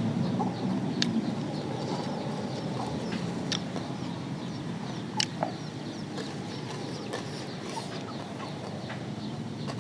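Chickens clucking, with a few sharp clicks.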